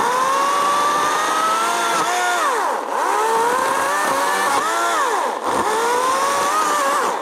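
EGO 14-inch battery-powered chainsaw running at speed with a steady high whine. Its pitch dips and climbs back several times, and it stops abruptly near the end.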